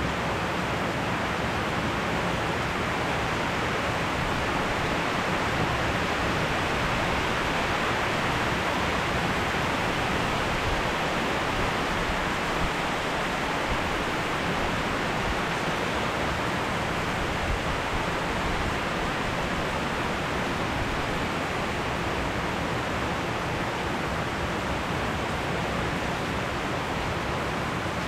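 Steady rain falling during a thunderstorm, an even hiss that holds at one level throughout.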